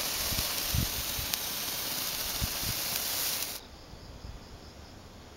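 Hand-held susuki sparkler firework burning with a steady hiss, cutting off suddenly about three and a half seconds in as it burns out.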